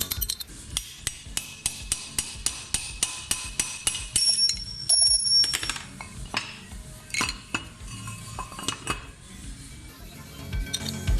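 Metal tools and parts clinking and tapping in a string of sharp clicks, with a brief metallic ringing about four to five seconds in, over background music.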